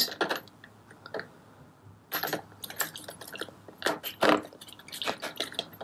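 Small mild-steel parts clinking against one another and the plastic tub as gloved hands move them about in the parts wash. The clicks are light and irregular, mostly from about two seconds in.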